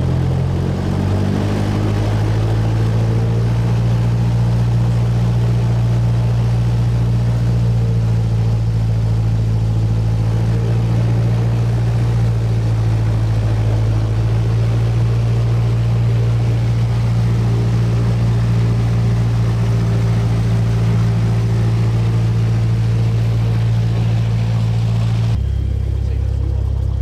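Single-engine Cessna's piston engine and propeller heard from inside the cabin, running steadily while taxiing. The engine note rises slightly about a second in, then holds, and drops abruptly to a lower note near the end.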